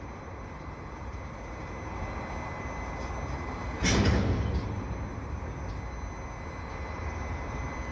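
Freight cars rolling slowly past: a steady low rumble of wheels on rail as the train slows toward a stop. A short, louder burst of noise comes about four seconds in.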